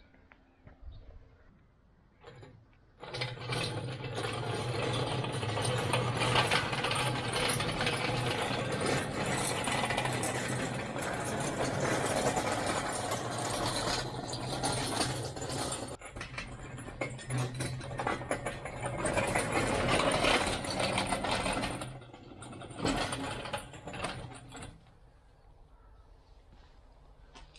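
The wheels under a heavy 1960s Boxford metal lathe on its stand rumbling and rattling as it is pushed along the ground. The rumble starts about three seconds in, breaks briefly in the middle, and dies away with some last clatter a few seconds before the end.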